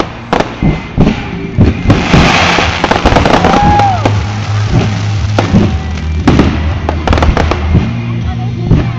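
Fireworks going off: a steady run of sharp bangs, with a dense crackling burst about two seconds in.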